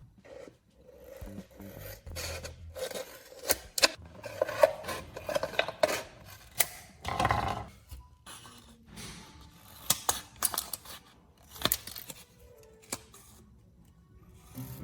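The top half of a plastic soda bottle being cut and trimmed into flat pieces: irregular crackling of thin plastic with many sharp clicks and clatter.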